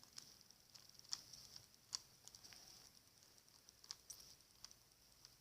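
Near silence with a few faint, scattered light clicks from a small plastic action figure being handled.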